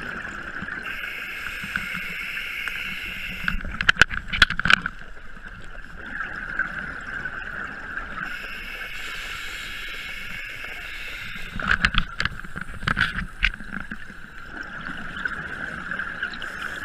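Scuba diver breathing through a regulator underwater, two full breaths. Each is a hissing inhale of about three seconds followed by a crackling rush of exhaled bubbles, the louder part. A steady high hum runs underneath.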